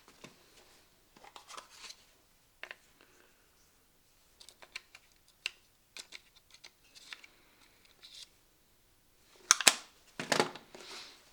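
Scattered light clicks and taps of tools and parts being handled, with two louder short scraping bursts near the end.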